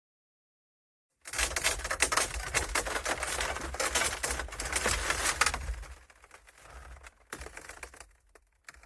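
Friction and stress sound effect: a dense run of rapid crackling clicks that starts about a second in and stays loud for about five seconds, then thins into sparser, quieter crackles.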